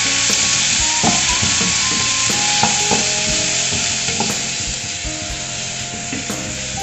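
Crushed shallots, ginger-garlic, curry leaves and green chillies sizzling in hot oil in a pan as they are stirred, with repeated scrapes and knocks of the stirring spoon against the pan.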